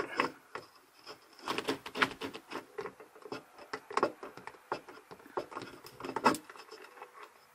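Irregular clattering: a string of sharp clicks, knocks and rattles from hard objects being handled and moved about, some with a brief ring.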